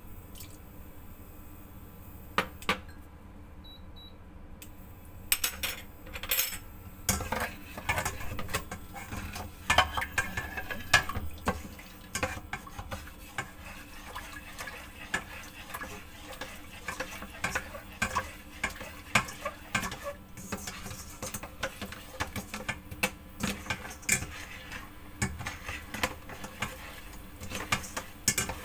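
A plastic slotted spatula stirring a thin soy sauce mixture in a stainless steel pot, scraping and clicking irregularly against the pot's sides and bottom. It is quieter for the first few seconds, with a couple of clinks, and the stirring picks up after about five seconds.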